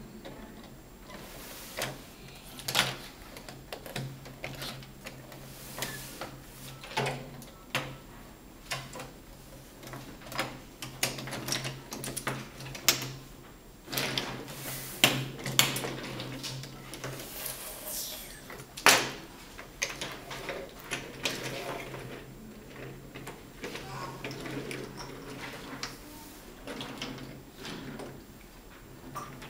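Wooden toy train track and pieces knocking and clacking as they are handled, in irregular clicks with a few sharper knocks. A steady low hum runs underneath.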